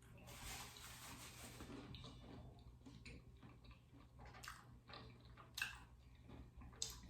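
Near silence with faint chewing and a few soft mouth clicks, scattered through the second half.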